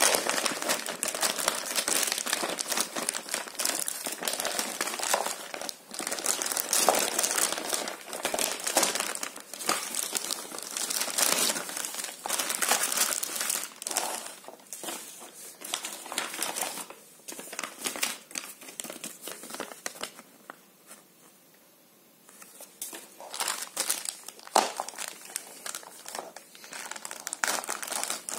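Clear plastic bags crinkling and rustling as hands unwrap and handle motorcycle handguard parts, in irregular bursts, with a lull of a couple of seconds about three-quarters of the way through.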